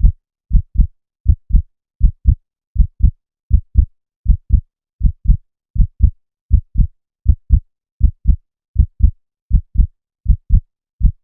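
Human heartbeat sound effect: steady, evenly paced double beats (lub-dub), about eighty a minute, deep and bass-heavy.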